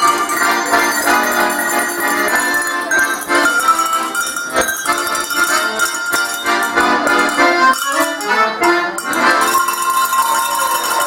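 Accordion and a set of hand-rung cow bells playing a tune together, the accordion holding chords under the ringing bells.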